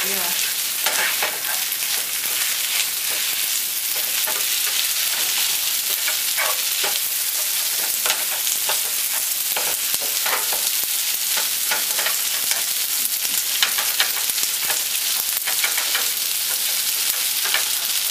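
Wide rice noodles, egg and sauce sizzling in a nonstick frying pan, with a steady hiss and many short scrapes and clicks as a slotted spatula stirs and turns them.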